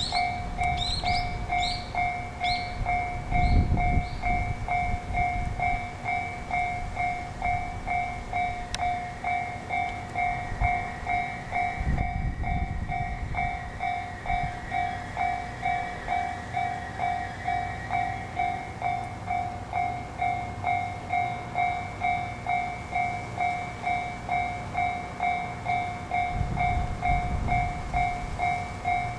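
Japanese railway level-crossing alarm ringing steadily, an electronic clang repeating about twice a second. A train's low rumble swells under it now and then.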